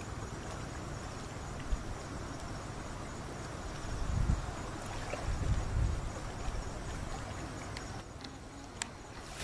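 Outdoor ambience: a steady noisy hiss with a faint insect chirping, low rumbles about four and six seconds in, and two small clicks, near two seconds and near the end.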